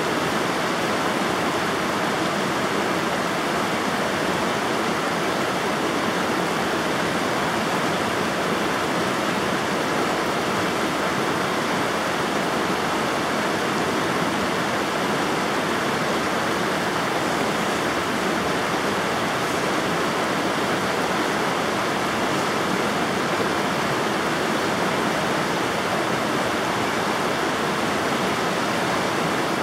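River water rushing and splashing, a steady, even roar of flowing water with no change in level.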